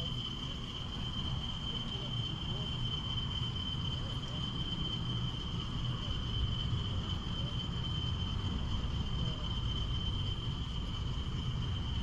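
A steady high-pitched, insect-like trill runs on without a break over a continuous low rumble.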